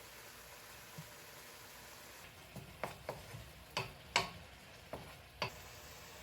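A quick run of about eight light clinks and knocks, like utensils or dishes being handled in a kitchen, over a faint steady hiss.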